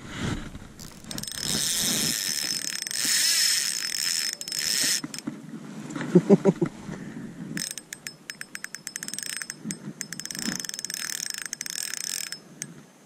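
Ultralight spinning reel being cranked, its gears whirring with a thin high whine, then turning with rapid fine clicking for several seconds. A brief loud burst of low pulses comes about six seconds in.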